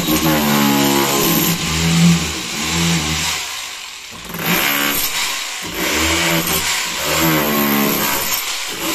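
Electric SDS demolition hammer with a chisel bit breaking up a brick wall: the motor runs in bursts, its pitch rising and falling as it is triggered and pushed into the brick, with a rapid hammering rattle underneath. It stops briefly about four seconds in and again about halfway through.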